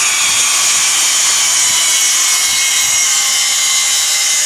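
Circular saw running on a track guide, cutting through a plywood panel in a trimming cut: a steady high-pitched motor whine under the noise of the blade in the wood.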